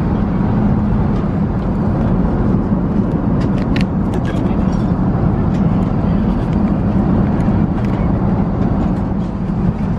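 Steady low cabin noise of an Airbus A380, with a few small clicks and rustles from the seat's tray table and seat-back pocket being handled.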